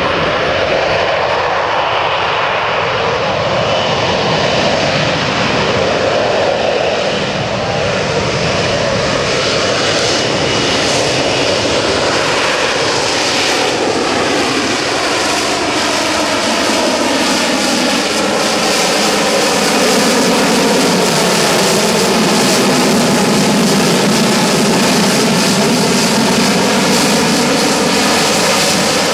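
Sea Harrier FA2's Rolls-Royce Pegasus turbofan running loud and continuous as the jet flies its display, a harsh jet noise with bands of tone slowly sliding up and down as the aircraft moves. Its hiss gets brighter over the first ten seconds and the noise swells slightly about twenty seconds in.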